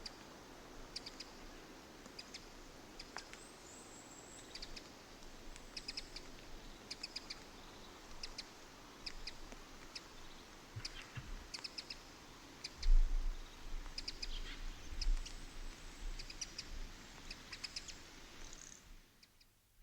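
Small birds chirping, with many short, high chirps repeated again and again over a steady outdoor hiss. A low rumble comes in about thirteen seconds in and is the loudest thing, and everything fades out just before the end.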